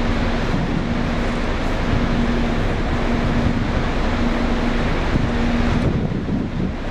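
Wind rushing over the microphone on a moving ship's open deck, a steady loud noise, with a faint steady hum underneath that stops near the end.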